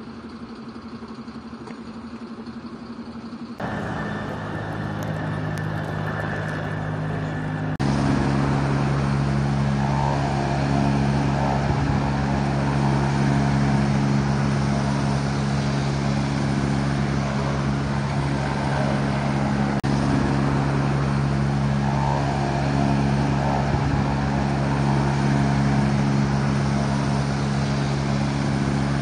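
A vehicle engine idling with a steady low hum. The level steps up abruptly twice, at cuts between clips.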